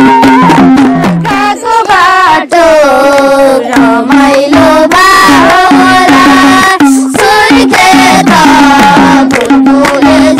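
Nepali folk dance song: a steady, quick drum beat under a singing voice carrying a wavering melody.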